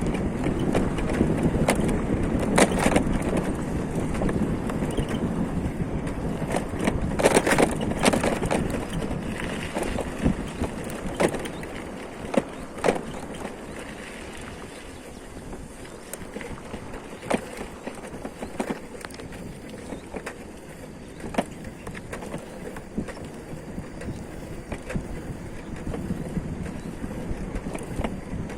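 A vehicle travelling along a road: steady rolling and wind noise, with scattered sharp knocks and rattles from bumps. It is louder for the first several seconds, then settles lower.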